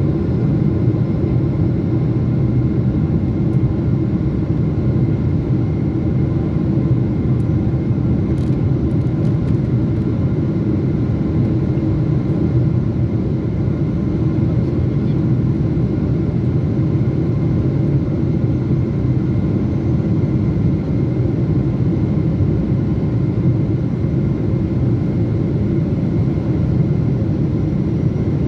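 Airliner cabin noise during descent: the jet's turbofan engines and rushing air make a constant low rumble, with a few faint, steady whining tones above it.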